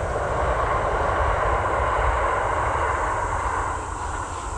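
Steady outdoor rushing noise with a fluttering low rumble, wind buffeting the microphone. It swells slightly around the middle and eases near the end.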